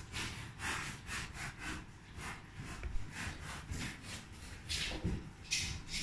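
Fingers swiping and tapping on the glass of a touchscreen car radio: an irregular run of short rubbing swishes, two or three a second, with a sharper tap about three seconds in.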